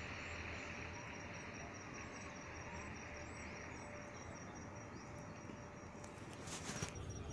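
Outdoor field ambience dominated by an insect, likely a cricket, chirping in a steady, evenly pulsed high-pitched trill, with a faint low hum underneath. Near the end, a brief clatter as cut guava halves are set down on a plastic plate.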